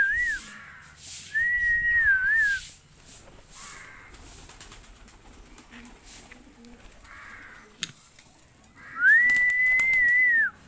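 A person whistling long single notes to call a flock of pigeons. Each note glides up, holds level and dips at the end. One trails off right at the start, one comes about a second in, and a long one comes near the end. Between them are softer rustles and faint bird sounds from the flock.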